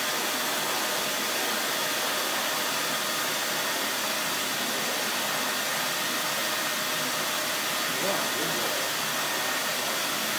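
Vacuum cleaner running steadily, its nozzle being used to groom a dog's coat.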